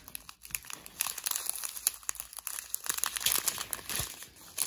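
Small clear plastic zip bags of diamond painting drills crinkling and rustling as they are handled, a busy irregular crackle that picks up about a second in.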